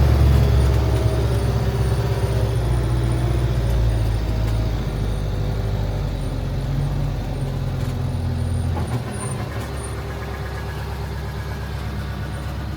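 Campervan engine running as the van drives slowly down a track, a steady low hum; about nine seconds in the engine note drops lower and quieter.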